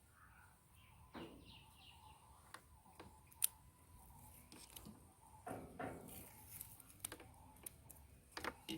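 Faint scattered clicks and knocks from handling a scooter's wiring harness, with birds chirping faintly in the background.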